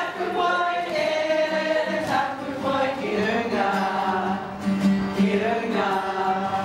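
A group of voices singing a song together, with notes held and moving in pitch throughout.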